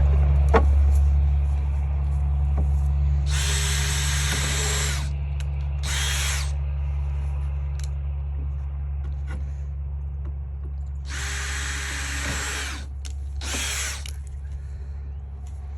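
Power drill running in four short bursts, two longer and two brief, working into pallet wood, over a steady low hum.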